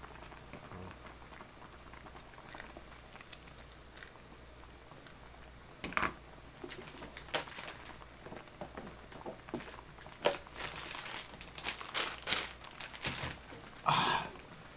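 Plastic packaging crinkling and rustling as it is handled, in a string of short, sharp crackles. They start about six seconds in and grow busier and louder toward the end.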